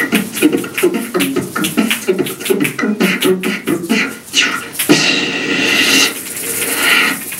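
Beatboxing: fast vocal percussion of kick-like thumps and clicking hi-hat sounds, giving way about five seconds in to a held, hissing vocal sound.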